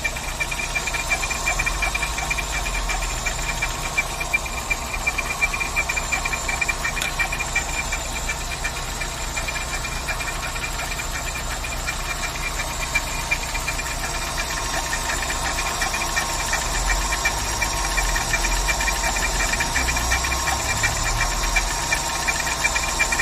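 Volkswagen AP 1.6 engine idling steadily with a rapid ticking noise and a steady high whine over it. The owner suspects something catching or rubbing around the timing belt and pulleys.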